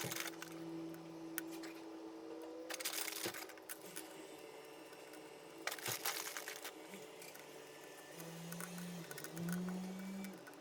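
Handling noises: a few short bursts of crunching and rustling, over a faint steady hum.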